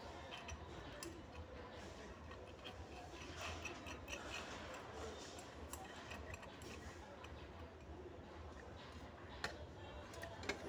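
Faint clicks and light scrapes of metal and plastic gate-light parts being handled and screwed together by hand, over a steady low hum. A sharper knock near the end.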